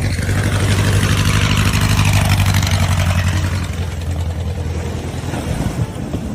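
An engine running with a steady low hum that grows louder to a peak about two seconds in, then slowly eases off.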